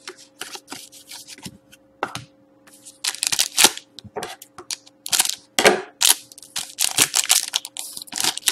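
Shiny wrapper of a hockey card pack crinkling and crackling as it is handled and torn open, after a few lighter clicks of cards and cardboard being set down. The crackling is dense from about three seconds in.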